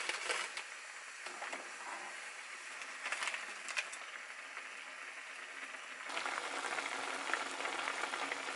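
Spicy ramen broth with clams boiling and sizzling in a frying pan, a steady bubbling crackle with a few brief knocks and rustles as ingredients go in. It gets louder and denser about six seconds in.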